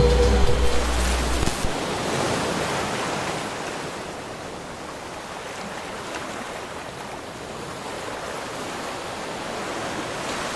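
Steady rushing, water-like noise with no tune in it, easing a little around the middle and building again toward the end. In the first couple of seconds a low bass note from the music dies away under it.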